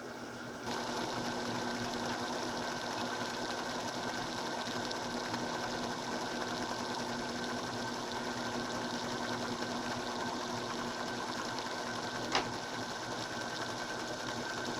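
Electric motor and belt-and-pulley drive of a small homemade metal lathe running steadily. It gets louder just under a second in, with a single sharp click near the end.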